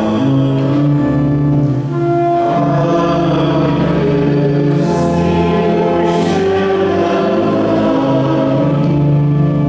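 Congregation singing a slow hymn with long held notes.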